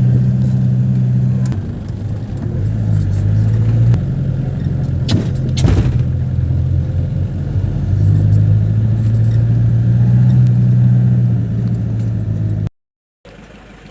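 A vehicle's engine running steadily on the road, its pitch shifting up and down a few times as the speed changes, with a brief knock or rattle about five seconds in. The sound cuts off abruptly near the end.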